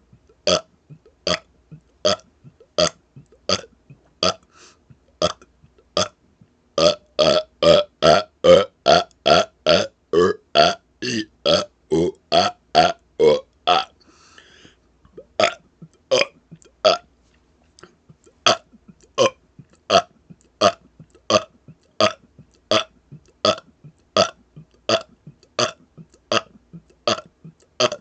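A man burping rapid-fire, one short separate burp after another, at about one and a half a second. From about seven seconds in the burps come faster, about three a second, and louder. After a short break near the middle they go back to the steadier pace.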